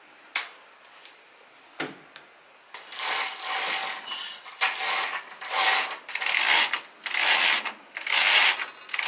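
Bead-chain cord of a zebra (day-and-night) roller blind being pulled hand over hand to raise the blind, a run of quick rattling pulls from about three seconds in. Two light clicks come before it.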